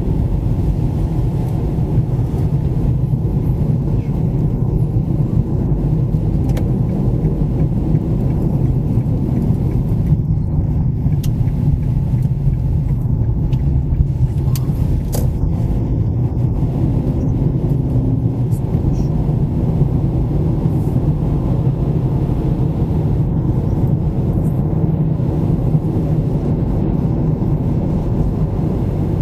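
Car driving at a steady speed: a continuous low rumble of road and engine noise that stays even throughout.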